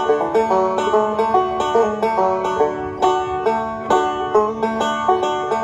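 Bluegrass band playing: a five-string resonator banjo picks a fast, continuous run of notes at the front, backed by mandolin, acoustic guitar and upright bass.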